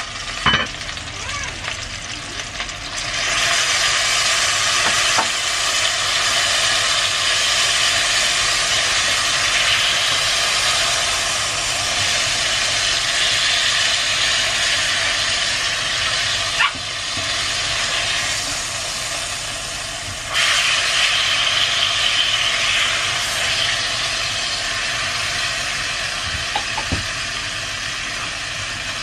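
Chicken pieces sizzling as they fry in a red enamelled cast-iron pot, getting louder about three seconds in as they are turned, easing briefly and swelling again about two-thirds of the way through. A few sharp clicks of the utensil against the pot.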